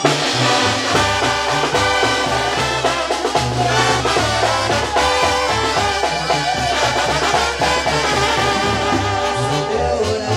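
Live Mexican banda with harp playing an instrumental passage: trombones and trumpets carry the melody over a moving bass line.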